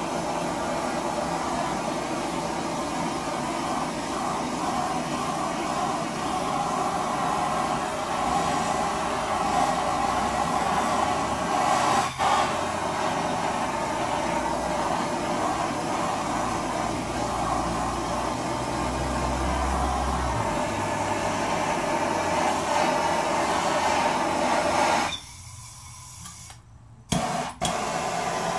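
Handheld blowtorch flame running with a steady hiss as it is played over wet oil paint. The hiss cuts out for about two seconds near the end, then comes back after a couple of sharp clicks.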